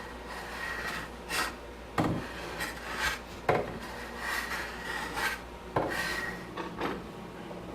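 A hand tool scraping across wood in separate, uneven strokes, with a few sharp knocks of wood on wood or tool on the bench in between.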